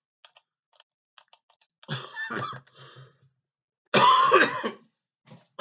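A man coughing: a rough cough about two seconds in, then a louder, harsher one about four seconds in. Faint light clicks come before them.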